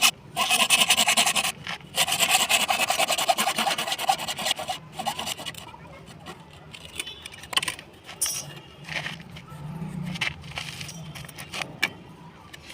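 Rapid rasping strokes of a hand tool, such as a file or saw, working material for about five seconds with two short breaks, followed by quieter scattered clicks and handling sounds.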